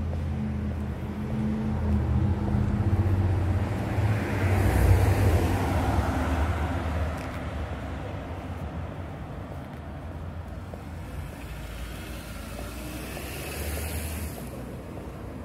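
A motor vehicle's engine passing close by: a low, pitched hum that swells to its loudest about five seconds in, then fades into quieter street noise. A brief rushing hiss follows near the end.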